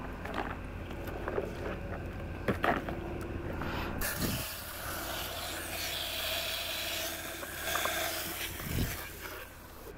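Scattered knocks and rubbing of plastic toys. Then, about four seconds in, a garden hose spray nozzle starts spraying water onto a plastic toy loader's bucket: a steady hiss that stops shortly before the end.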